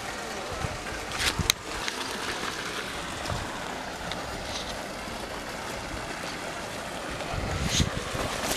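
Steady rushing outdoor background noise, with a few short knocks and rustles about a second in and again near the end, as a large fish is handled and carried in a vinyl release mat.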